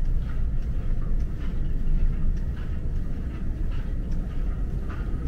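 Footsteps at a walking pace, about two a second, over a steady low rumble of handling noise from a handheld camera carried while walking.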